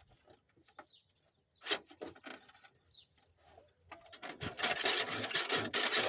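Scraping and rubbing from close handling, with a few scattered light clicks at first, turning into loud, continuous scraping about four seconds in.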